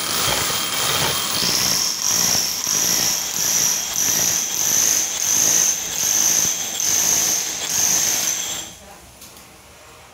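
Ryu RRH 26 rotary hammer drilling into a plastered masonry wall with a large core bit, running steadily with a high whine and a level that swells and dips as it bites. It stops near the end.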